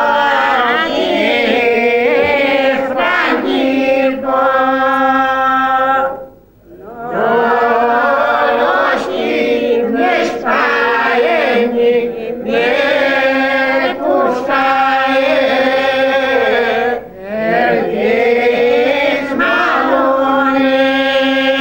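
Unaccompanied group singing of a slow Greek village folk song by older villagers, in long held notes sung in phrases, with a breath pause about six seconds in.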